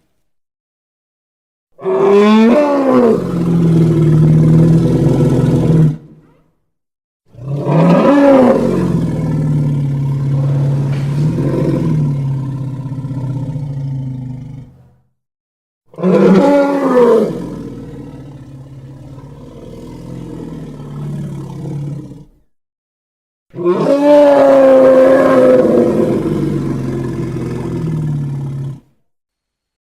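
Four custom creature roars for a monstrous elephant. Each opens with a quick wavering pitch sweep and settles into a long, lower held growl lasting several seconds, with short silences between the calls.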